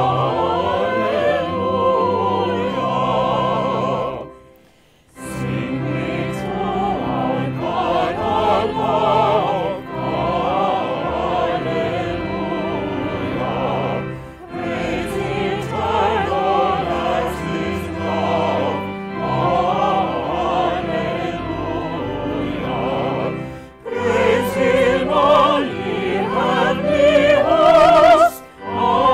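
Background music: classical singing with vibrato over orchestral accompaniment, with a brief pause about four seconds in.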